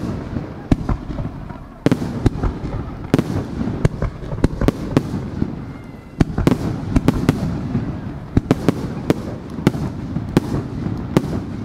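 Aerial firework shells bursting in a rapid barrage: many sharp bangs over a rolling low rumble, easing briefly about halfway through before a second dense flurry.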